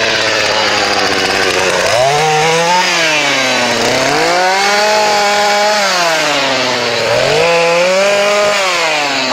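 Chainsaw engine revved up and down, its pitch rising and falling about three times between steadier idling.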